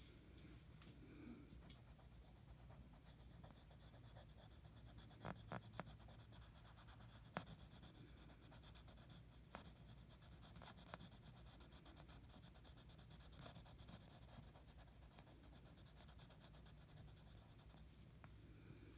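Faint scratching of a pen drawing on paper, with a few light clicks or taps about five to six seconds in and again at about seven and a half seconds.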